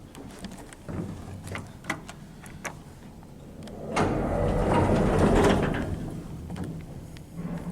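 Otis lift doors sliding, loudest about four to six seconds in, after a run of light clicks.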